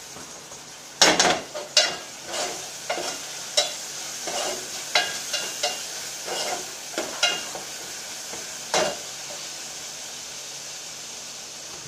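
A ladle stirring and scraping in an aluminium pot of browned onions and ginger-garlic paste frying on a gas burner, clinking against the pot's metal about a dozen times, irregularly. The stirring stops near the end, leaving a steady sizzle.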